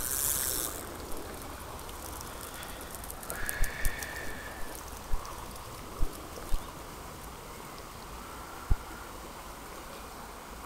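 Shallow trout stream running steadily over stones, with a handful of dull knocks in the middle of the stretch, the loudest sounds, from handling the fishing rod and camera.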